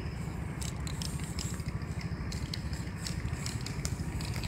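Steady low engine rumble of a nearby idling vehicle, with many short high hisses of an aerosol spray-paint can marking a pothole.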